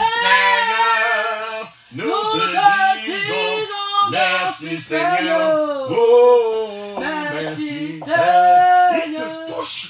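Unaccompanied singing with long held notes, broken by a short pause about two seconds in.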